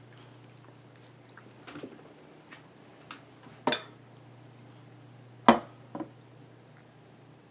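A handful of short, sharp knocks and clicks, the two loudest about two seconds apart near the middle, over a low steady hum.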